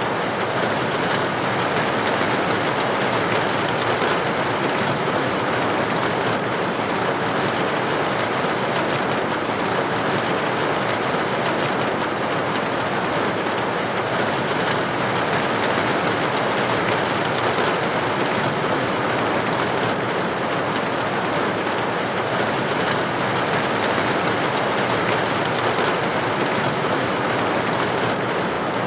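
Steady rain pattering against window glass, an even, unbroken hiss of drops with no single hits standing out.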